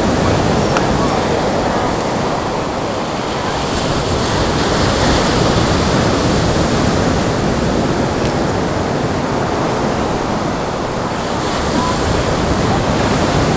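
Small surf breaking on a beach, a steady wash of waves that swells and eases every several seconds.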